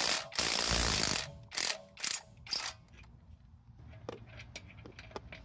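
Ratchet wrench clicking in several quick strokes, working an old lug bolt out of a car wheel. It then gives way to a few faint metallic clicks and taps.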